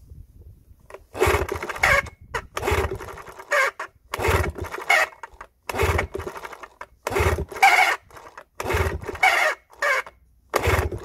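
A 1976 Evinrude 6 hp two-stroke outboard being cranked over by hand with its spark plugs out and a compression gauge in the lower cylinder. There are about seven cranks, roughly one every second and a half starting about a second in, each a short run of rapid chuffing pulses as the pistons compress.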